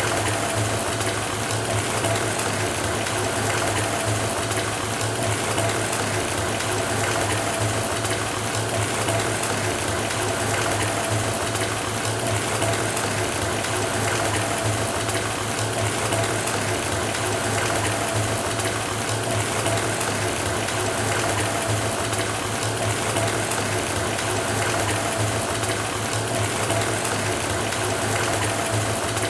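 Bathtub filling from the faucet: water running steadily into the tub, with a low steady hum under it.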